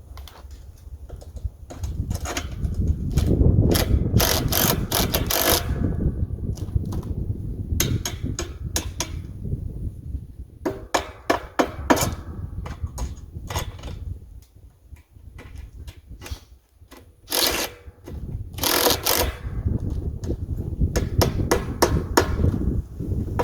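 Irregular knocks, clanks and hammer-like strikes of metal parts being worked and handled while the deer feeder's stand is assembled, over a low rumbling background.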